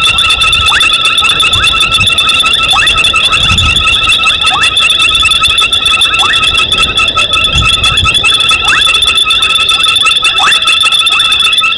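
Frogs calling in a night chorus. Steady high-pitched trilling runs at several fixed pitches, and a short call falling in pitch repeats about once a second.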